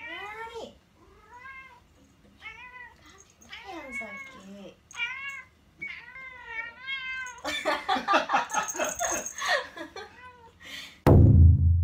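Domestic cat meowing over and over, each cry rising and falling in pitch, with a denser, louder run of cries in the last third: a cat begging insistently for food. Near the end a sudden loud low boom cuts in and rings on, fading.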